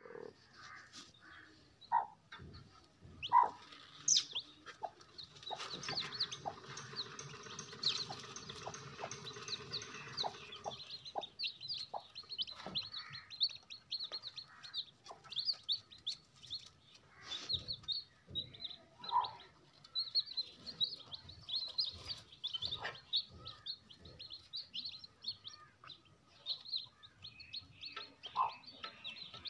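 Day-old Aseel chicks peeping constantly in many short, high chirps, with a few lower calls from the broody hen. Light rustles and clicks of straw as a hand moves among the chicks.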